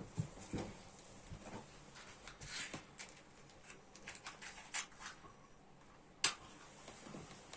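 Scattered light clicks, knocks and rustles of twigs and kindling for a small wood fire, with one sharp snap about six seconds in.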